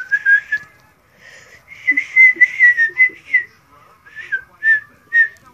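A girl whistling through pursed lips, breathy, in a high, slightly wavering pitch: a short note, a longer held note after a pause, then three short notes near the end.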